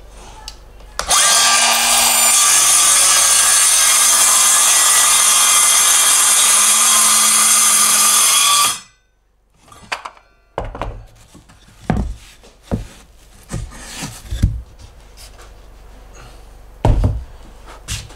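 Circular saw running and cutting through a plywood sheet for about seven and a half seconds, a steady high whine over the noise of the blade in the wood, starting suddenly and stopping abruptly. Afterwards come several separate knocks and clunks of the saw and boards being handled.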